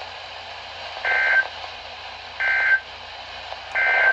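Emergency Alert System SAME end-of-message code: three short, identical bursts of shrill two-tone digital data, about a second apart, over faint radio hiss. They mark the end of the severe thunderstorm warning broadcast.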